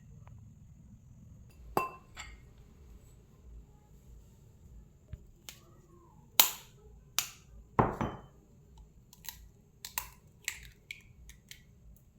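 Kitchen utensils and dishes being handled: a dozen or so sharp clicks and knocks at irregular intervals, the loudest about six and eight seconds in.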